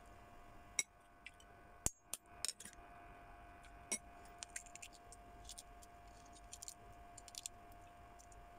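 Shell of a balut (boiled fertilised duck egg) being cracked and picked off with the fingertips: several sharp clicks in the first four seconds, then a run of lighter ticks.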